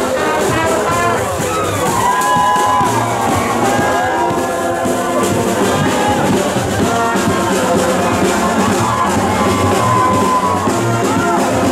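A brass band playing in a street parade, with low horn notes under the melody and crowd noise around it.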